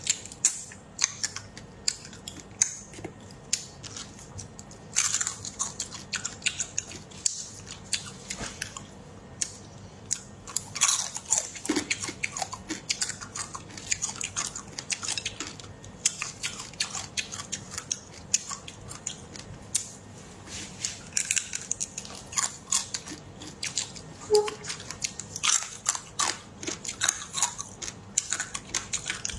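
Close-up eating sounds of marinated crab pieces being bitten and chewed: many irregular sharp crunches and clicks of shell, with wet mouth sounds in between.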